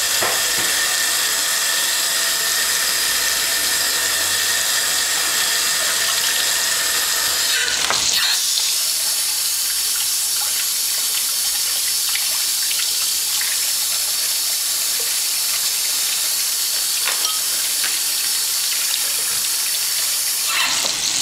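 Kitchen tap water running as lettuce is rinsed, over a steady sizzle of peppers frying in a pan. The running water stops about eight seconds in, leaving the sizzle.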